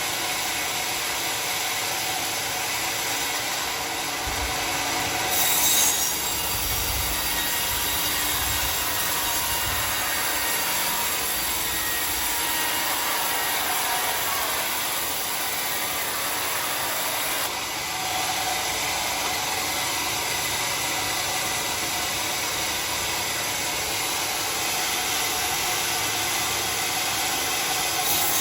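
Homemade sawmill saw cutting steadily through a log of dry, very hard acacia wood: a continuous cutting noise with faint high tones, swelling briefly about six seconds in.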